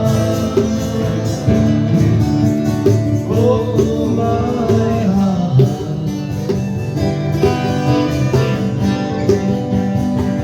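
Live country-folk band playing an instrumental break between verses, led by plucked guitar.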